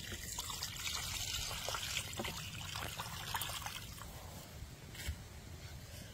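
Water poured from a bowl into a metal wok over a pork leg with chillies, splashing and trickling for about four seconds before it tapers off. A single light knock comes about five seconds in.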